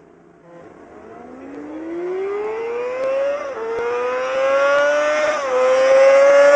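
Motorcycle engine accelerating hard through the gears, its note rising with two upshifts where the pitch dips and climbs again, growing steadily louder as it approaches.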